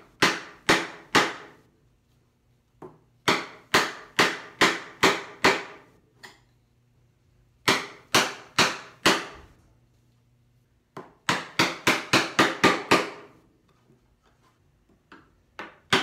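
Mallet striking a chisel to chop a mortise in hardwood: sharp blows in four runs with short pauses between, the last run quicker, several blows a second.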